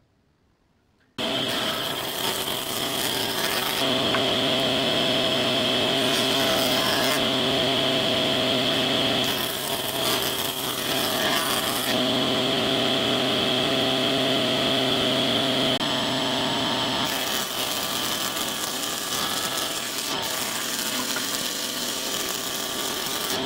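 About a second in, a combination jointer-planer starts sounding loud and steady: the motor and spinning cutterhead whine while the knives plane rough pallet wood, the level shifting slightly as boards are fed through.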